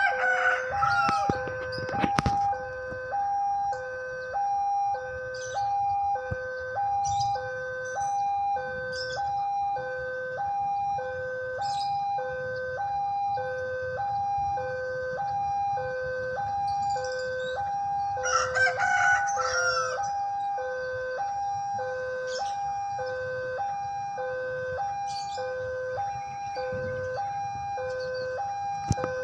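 Railway level-crossing alarm sounding its electronic two-tone warning, a low and a higher tone alternating steadily about once a second: the signal that a train is approaching. A rooster crows at the start and again about 18 seconds in.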